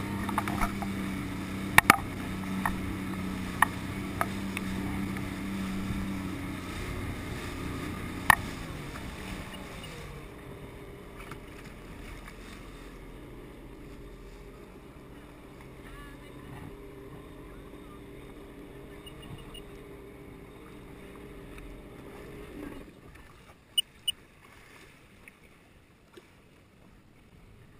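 Sea-Doo personal watercraft engine running at speed with water rushing past. About eight seconds in, the engine note falls as it throttles back, then runs lower and steadier until it quietens near the end. A few sharp knocks come through along the way.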